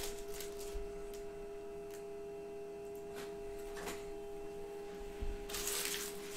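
A steady, even hum-like tone with fainter higher tones above it. About five and a half seconds in comes a short rustle of card packaging being handled.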